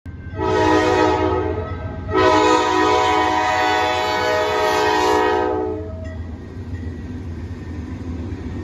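Diesel freight locomotive sounding its multi-chime air horn at a grade crossing: a short blast, then a longer one of about four seconds, several notes sounding together as a chord. After the horn stops, the steady low rumble of the passing locomotives carries on.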